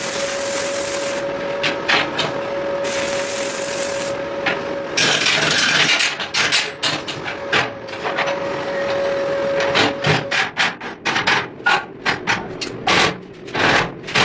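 Metalworking workshop noise: a machine's steady hum with a few second-long bursts of hissing, then a quick, irregular run of metal knocks and clanks over the last few seconds.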